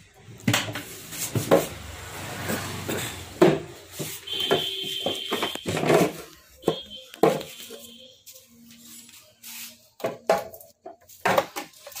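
Flight case being opened: its metal latches clicking and the aluminium-edged cover knocking and rattling as it is worked loose and lifted off, in a run of irregular clicks and knocks.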